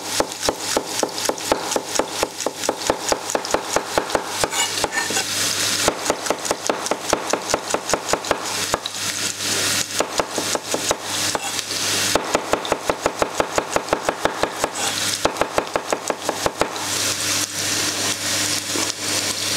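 Chef's knife chopping garlic cloves on a wooden cutting board in runs of quick strokes with a few short pauses, over the steady sizzle of onions sautéing in oil in a frying pan.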